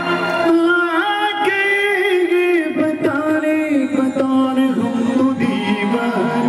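A man singing a melodic song live into a microphone, holding long, wavering notes, with keyboard accompaniment.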